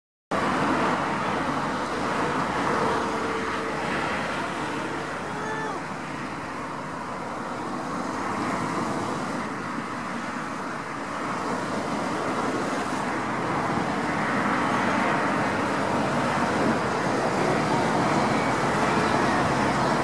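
Steady road-traffic noise with a low, even hum running through it.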